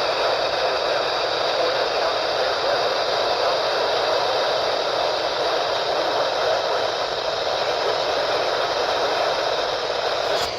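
Radio receiver static: a steady hiss with no programme audio. A sharp click comes right at the end.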